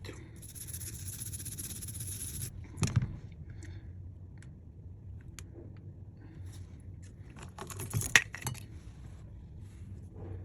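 Small metal tools clinking and scraping on a work surface, with a cluster of sharp clinks about eight seconds in. A steady hiss runs for about two seconds near the start.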